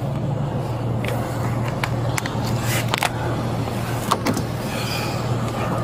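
A vehicle engine idling with a steady low hum, with a few short clicks and knocks scattered over it.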